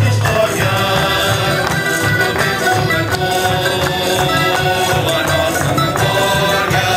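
Portuguese student tuna band performing live: a male chorus singing together over strummed acoustic guitars and mandolins, accordion, double bass and tambourine.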